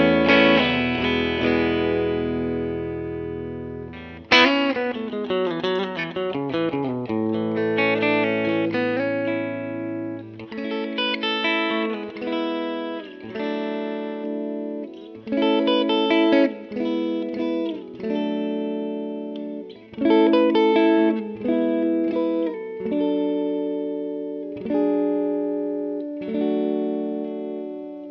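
Telecaster electric guitar with a Busch Arctic Wolf Alnico 5 pickup set, played through a Muleskinner amp. A chord rings out and fades over the first few seconds, then come picked notes, and finally short chord stabs struck every second or two and cut off between hits.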